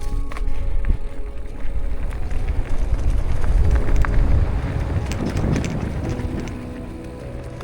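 Mountain bike rolling fast over a rough dirt trail: wind buffeting the microphone with a heavy low rumble, and the tyres and frame rattling and clicking over bumps.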